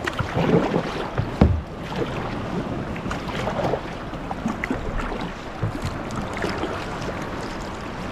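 Water splashing and lapping against a kayak hull as it is paddled along, with a sharp knock about one and a half seconds in.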